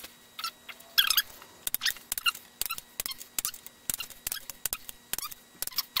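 ARP main bearing cap fasteners squeaking in short bursts as they are tightened with a ratcheting torque wrench, with quick ratchet clicks in between.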